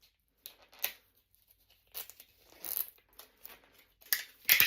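Zuru Snackles mystery plush packaging being torn open and crinkled by hand, in short, irregular rips and rustles, loudest near the end.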